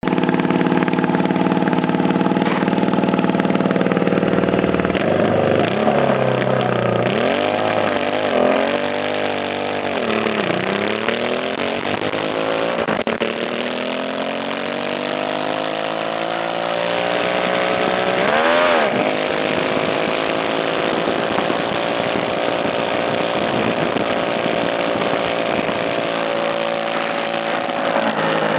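650cc racing lawn mower engine idling steadily, then revved up and down several times from about five seconds in. It then climbs steadily in pitch as the mower gathers speed, dips and picks up again briefly about two-thirds of the way through, and runs at a steady speed to the end.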